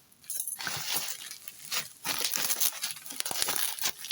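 Plastic bubble wrap being handled and pulled out of a shipping box: dense crinkling and rustling with sharp crackles, starting about half a second in.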